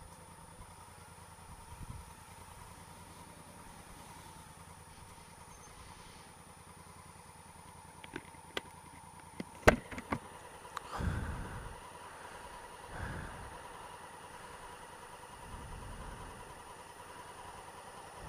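Honda Africa Twin CRF1000L's parallel-twin engine idling steadily while stopped at a traffic light. A few sharp clicks come about eight to ten seconds in, followed by several short swells of engine sound.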